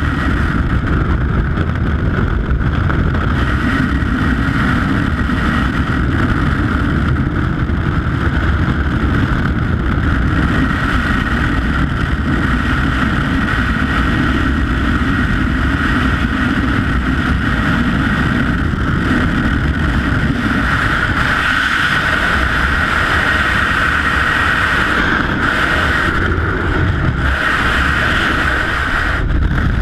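Steady loud rush of freefall wind buffeting a helmet-mounted camera's microphone during a skydive.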